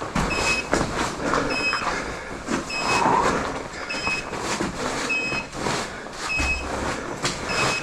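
Portable gas monitor's alarm beeping about once a second, warning of low oxygen, over scuffing and knocking of movement.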